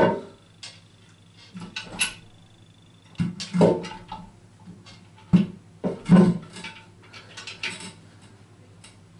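Irregular clunks and clatters of hands and fittings knocking against a ceramic toilet cistern while it is worked on and bolted down, about half a dozen separate knocks with short ringing.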